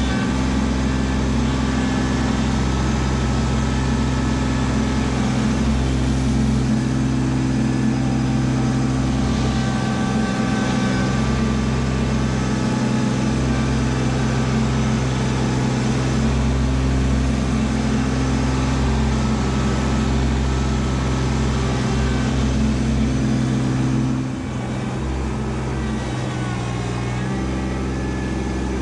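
Kubota LX2610 compact tractor's three-cylinder diesel engine running steadily at working revs while the front loader digs into and lifts gravel. About 24 seconds in, the engine note drops lower and quieter.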